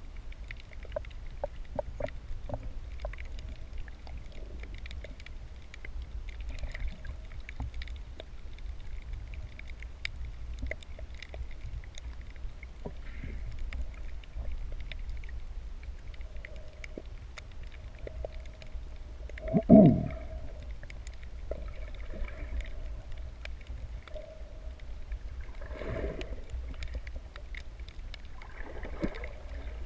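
Underwater ambience picked up by a submerged camera over a reef: a steady low rumble with many scattered sharp clicks and faint tones that come and go. One loud low sound about 20 seconds in.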